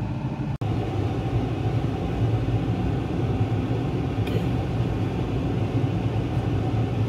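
A steady low rumbling hum, such as a kitchen fan or appliance makes, with a faint click about four seconds in.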